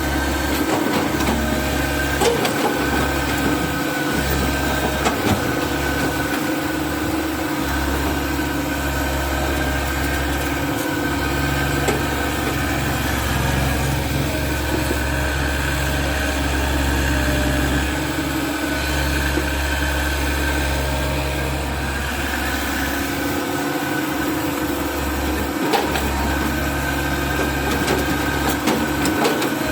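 Diesel engine of a hydraulic excavator running steadily while it works, with a few short knocks scattered through.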